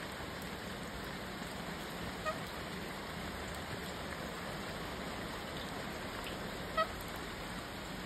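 Steady rain falling, a constant even hiss, with two brief high chirps about two and seven seconds in.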